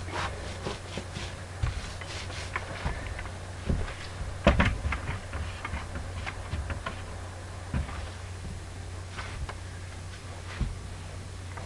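Scattered light knocks and clicks of hand painting work: a paint roller being loaded at a tray and rolled onto a stucco wall on an extension pole. The loudest knocks come about four and a half seconds in, over a steady low hum.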